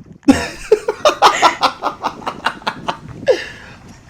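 A person laughing: a quick string of short laughs lasting about three seconds.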